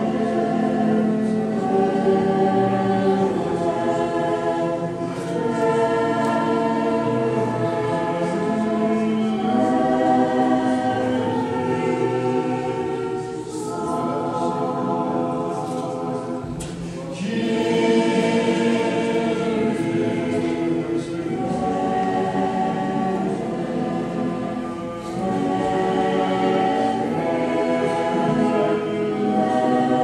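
Orthodox church choir singing a liturgical hymn in harmony, with held chords changing every second or two and a short lull about halfway through.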